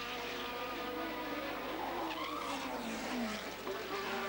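Formula 3000 race cars' V8 engines running at racing speed, with one engine note falling steeply about two to three seconds in and a skid of tyres as a car slides off the track.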